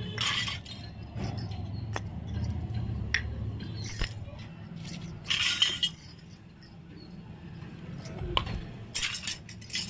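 Miniature stainless-steel toy utensils being set down on a concrete floor and knocking against each other: a few light metallic clinks and scrapes at uneven intervals.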